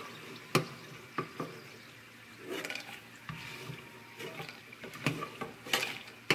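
Metal slotted spoon scraping and clicking against a nonstick frying pan as fried biscuit pieces are scooped out of the oil, with several sharp, irregular clicks.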